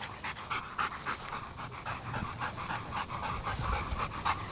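German Shepherd panting with its tongue out, quick, even breaths about four a second, winded from a fetch session.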